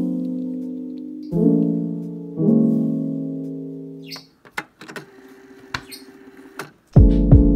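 Background piano music: chords struck and left to ring and fade. About four seconds in, the music falls away to a quiet stretch with a few light clicks. New chords come in loudly near the end.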